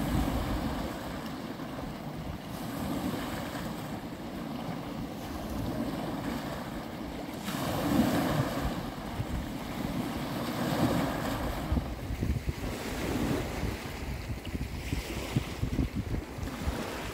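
Small sea waves breaking and washing over a pebble beach, surging every few seconds, with wind buffeting the microphone.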